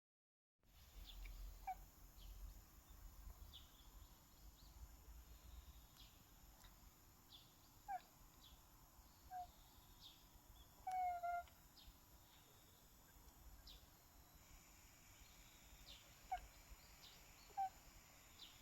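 A cat chattering at birds, giving a handful of short chirps, the longest about eleven seconds in, over faint, scattered high chirps of small birds outside.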